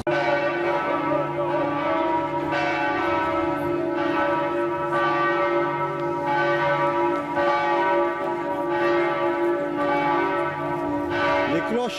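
Large church bells ringing, fresh strokes coming every second or so over a long, sustained ringing hum.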